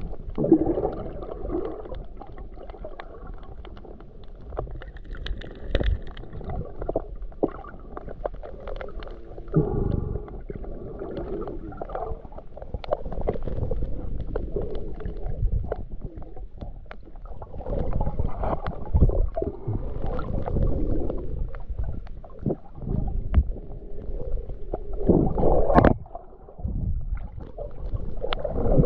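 Muffled underwater sound heard through a GoPro in its waterproof housing: low surging and gurgling of water that swells and fades, with scattered small sharp clicks.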